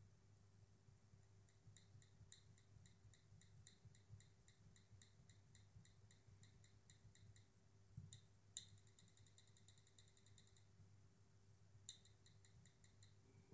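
Near silence with faint, evenly spaced short electronic ticks, about four a second, then a sharper tick and a quicker run of ticks after about eight seconds and another short run near the end, from an iPad Air 2's audio output.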